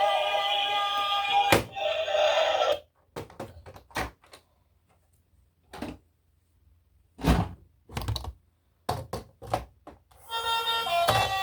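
Background music that cuts off about three seconds in, then a string of scattered short clicks and knocks, the loudest a dull thump about seven seconds in; the music comes back near the end.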